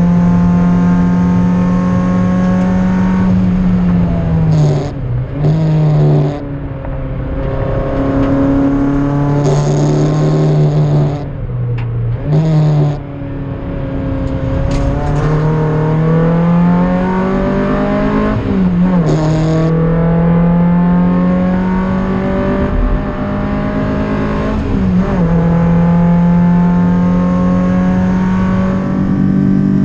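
MGF race car's engine heard from inside the cockpit at speed, running at high revs, dropping as the car slows for corners, then pulling back up through the gears with a short dip at each upshift. The revs are kept to around 6-7k to spare the engine after a head gasket scare.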